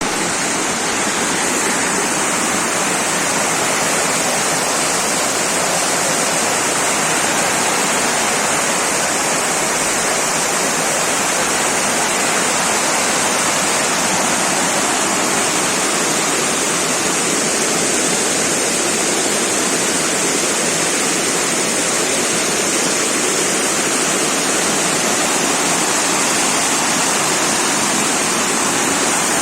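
Flash-flood water after a cloudburst, rushing as a loud, steady torrent without let-up.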